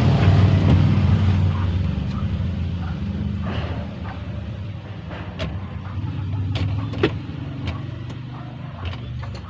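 Mitsubishi L300 van engine running with a low, steady drone that fades over the first few seconds, heard from inside the cab. A few sharp clicks come through in the second half.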